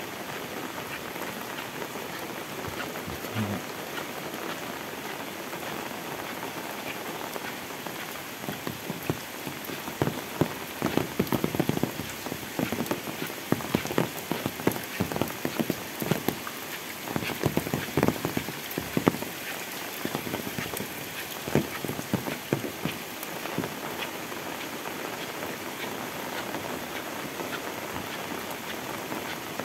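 Heavy rain falling steadily, with sharp, louder drops striking close by through the middle stretch.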